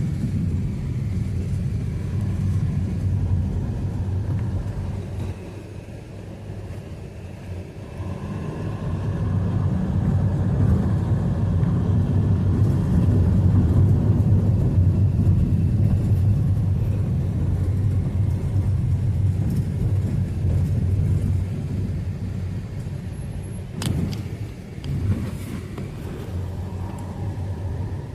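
Low rumble of a car moving on the road, swelling and fading, with a sharp click near the end.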